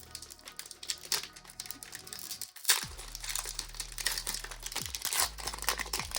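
Foil wrapper of a Pokémon trading card booster pack crinkling and tearing as it is pulled open by hand, with dense sharp crackles throughout.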